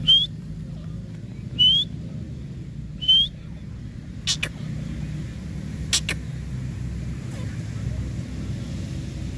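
Grey francolin giving short, sharply rising whistled call notes, three of them about a second and a half apart, followed by two sharp clicks, over a steady low rumble.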